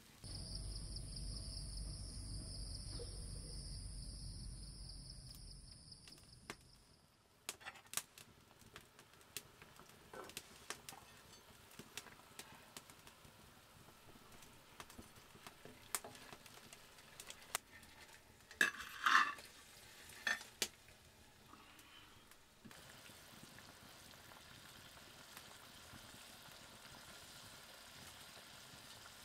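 Fish curry sizzling in a metal karahi, with a metal spoon clinking and scraping against the pan, loudest in a cluster of clanks about two-thirds through. It opens with a steady hiss and low rumble that fades after about six seconds.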